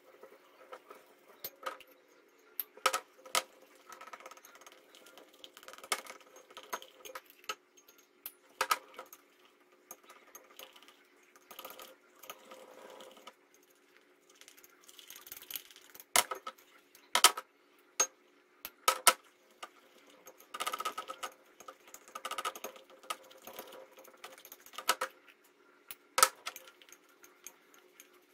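Hands kneading glue and baking soda into slime in a clear glass bowl: irregular sharp clinks against the glass, with softer rubbing and handling noise in between.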